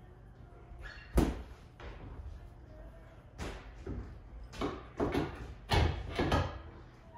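Steel picks of ice tools knocking and scraping on plastic climbing holds during dry tooling: one sharp knock about a second in, then a run of knocks and short scrapes over the last few seconds.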